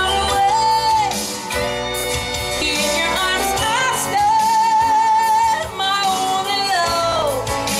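A woman singing a pop song live into a microphone over recorded backing music with bass, drums and guitar. She holds long notes with vibrato and slides down in pitch at the end of a phrase near the end.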